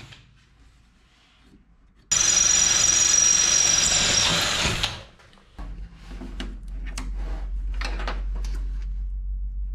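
Cordless drill running for about three seconds with a high steady whine as it drills through the aluminium spar beside a clamped bracket, stopping abruptly. Light clicks and taps follow over a low steady hum.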